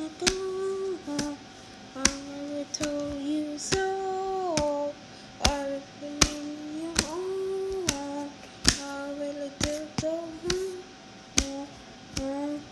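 A child's voice singing a slow melody of held notes with short slides between them, with sharp taps or clicks coming irregularly between and over the notes.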